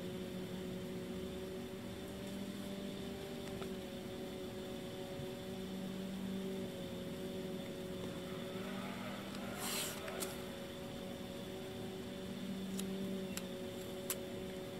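A steady mechanical hum of a few constant tones runs throughout. About ten seconds in, painter's tape is pulled off its roll with a short rising squeal and a brief tearing rip, followed by a few faint clicks.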